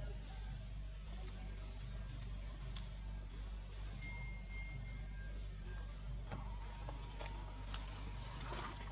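Outdoor ambience: a steady low hum under a high, short chirp repeated about once a second, with a brief thin high tone about four seconds in.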